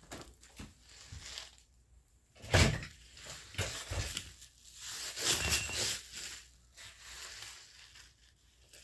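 Rustling, scraping and bumps as a toddler's hands and body move over a tatami mat strewn with fish-food pellets; the loudest bump comes about two and a half seconds in, with more rustling around five to six seconds.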